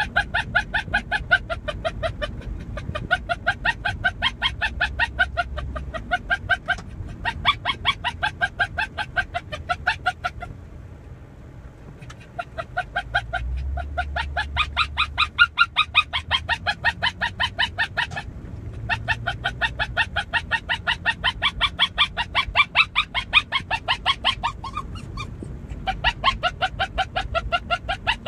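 Dog yipping nonstop in rapid, high-pitched cries, several a second. It breaks off for about two seconds about ten seconds in and briefly twice more.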